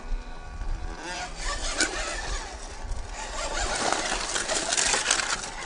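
The small brushed electric motor and gearbox of a 1/14-scale JY66 RC Jeep crawler whir as it climbs over rock, with the tyres scrabbling on stone and gravel. The scratchy noise builds from about a second in and is loudest near the end.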